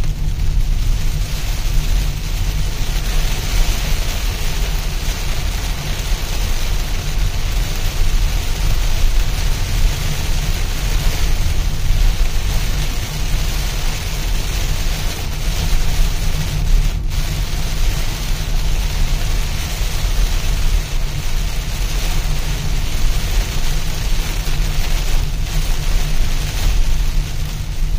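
Heavy rain beating steadily on a moving car, over a constant low road and engine rumble, with a single sharp click about two-thirds of the way through.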